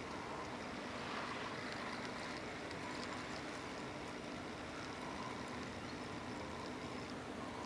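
Steady riverside background noise: an even hiss with a faint low hum underneath.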